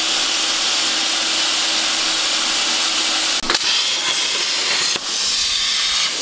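CNC plasma cutter torch cutting a small metal plate, a steady loud hiss of cutting air and arc. There is a sharp crack about three and a half seconds in and a brief dip in the hiss about five seconds in.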